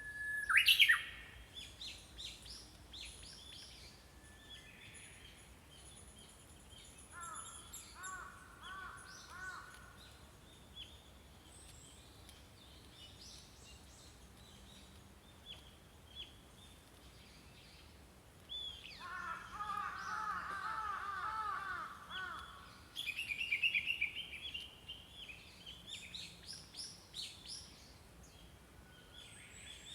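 Several small songbirds singing and calling, with a loud sharp call about a second in and rapid runs of repeated notes later on, over faint outdoor background noise.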